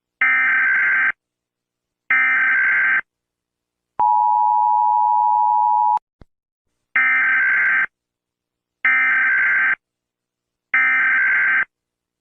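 Emergency Alert System tones: harsh one-second screeches of SAME digital header data, sounding twice, then the steady two-tone EAS attention signal for about two seconds. A click follows, then three more header screeches.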